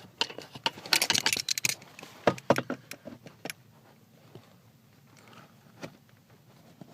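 Metallic clicking and clattering as vice grips (locking pliers) are handled and clamped onto the heater core's metal tabs: a quick run of clicks and rattles over the first three seconds or so, then only a few scattered clicks.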